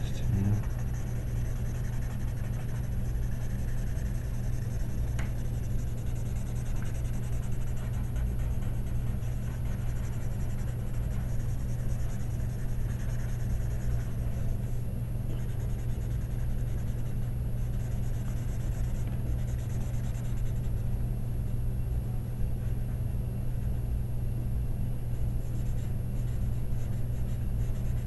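Graphite pencil and blending stump scratching and rubbing on drawing paper while shading, over a steady low hum.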